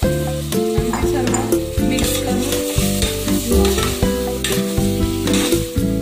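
Washed rice frying in hot oil and masala in an aluminium pressure cooker, sizzling while a steel spoon stirs and scrapes it against the pot in repeated strokes. Background music plays underneath.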